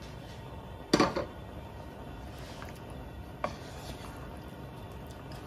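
Wooden spatula knocking against a coated kadai while raw chicken pieces are turned in oil. A sharp double knock about a second in is the loudest, followed by a few lighter taps.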